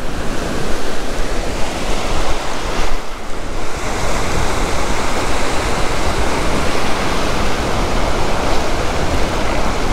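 Ocean surf breaking and foam washing over the sand, a steady rushing hiss, with wind rumbling on the microphone. The wash dips briefly about three seconds in, then comes back hissier.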